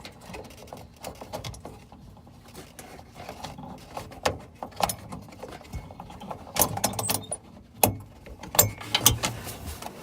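Hands working a halogen headlamp bulb loose from its housing through the wheel well: rustling and handling noise with scattered clicks, the sharper ones coming in the second half.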